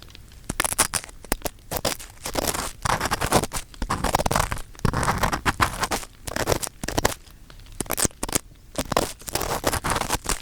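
Ear-picking on a 3Dio binaural microphone's ear: close, irregular scraping and crackling strokes of the pick rubbing inside the ear canal, in quick uneven runs.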